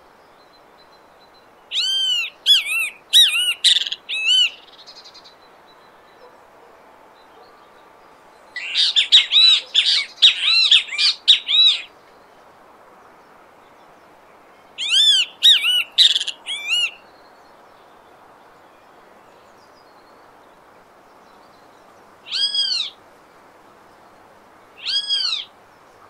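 Great kiskadee (bem-te-vi, Pitangus sulphuratus) calling: three bouts of rapid, loud, arched notes, the middle one longest and densest, then two single short calls near the end.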